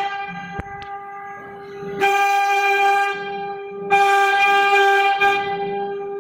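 CNC router spindle running with a steady high whine. About two seconds in, and again about four seconds in, it turns louder and fuller as the bit cuts into the material.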